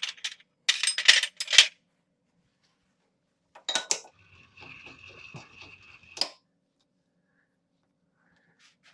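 Metal tools clinking and clattering as they are handled in a machine shop: a cluster of clinks in the first two seconds, another near four seconds, and a last clank at about six seconds, with a short steady whine in between.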